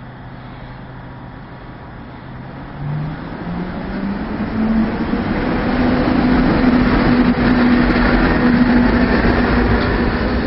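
Matterhorn Gotthard Bahn narrow-gauge electric train pulling away and gathering speed. Its motor hum climbs in pitch in several steps from about three seconds in, then holds a higher steady whine as the sound grows much louder.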